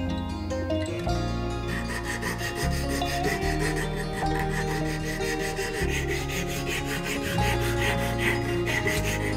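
A strip of sandpaper is pulled back and forth, shoeshine style, around a carved wooden lure body held in a vise. It makes quick, rhythmic rasping strokes that start about two seconds in, over background music.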